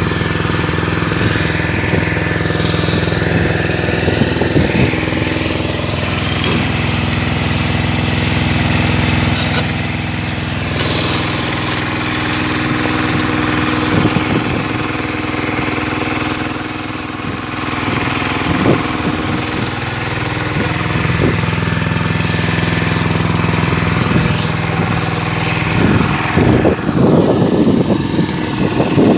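An engine running steadily at a constant speed, with a few short sharp metallic noises over it about ten seconds in and again near the end.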